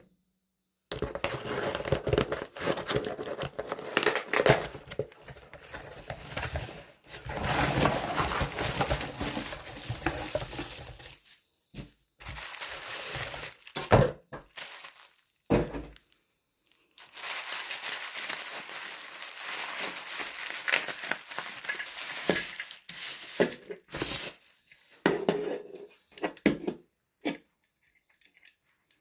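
Funko Soda packaging being crinkled and torn open, a dense crackling rustle in several long stretches broken by short pauses.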